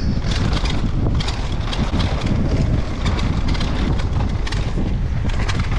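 Wind buffeting the microphone on a fast downhill mountain bike descent, with the tyres rolling over dirt and loose stones and frequent clacks and rattles from the bike.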